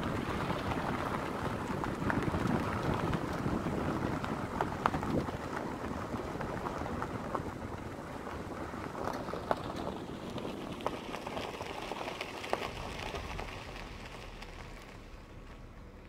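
Gravel and grit crunching on a dirt road under movement, a dense rough noise full of irregular little clicks, with wind on the microphone; it dies down over the last few seconds.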